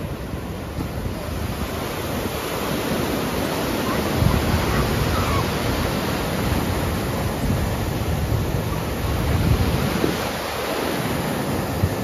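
Ocean surf rushing steadily, with wind buffeting the microphone in gusts. The rush swells about four seconds in and again near ten seconds.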